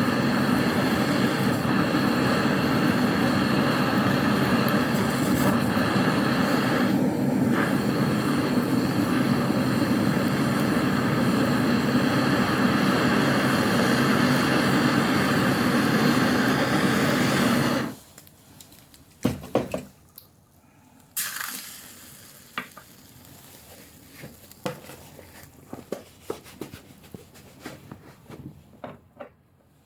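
A 1300 °C torch flame burning steadily on a stainless-steel padlock cylinder, then cut off suddenly about 18 seconds in. A few small clicks and knocks follow.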